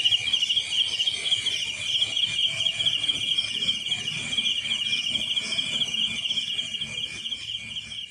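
Crickets chirping in a dense chorus of rapidly pulsing high trills, over a quieter low background noise.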